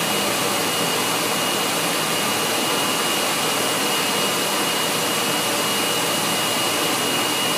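Electric hand dryer blowing steadily with a hand held in it, a thin high whine over the rush of air. It keeps running after its 10-second countdown has reached zero.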